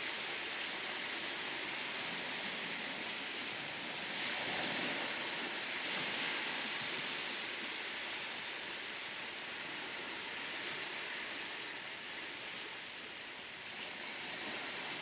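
Sea waves washing and hissing, a steady rush of surf that swells about four seconds in and slowly eases off.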